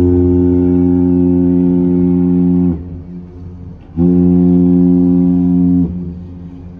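The ship's horn of the bulk carrier Oakglen sounding a salute, low in tone and almost breathy. One long blast cuts off a little under three seconds in. A second, shorter blast of about two seconds follows after a pause of just over a second.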